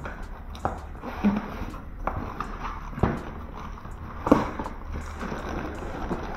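Cardboard box being handled and opened by hand: irregular knocks and scrapes of the flaps and panels, with a plastic bag rustling near the end.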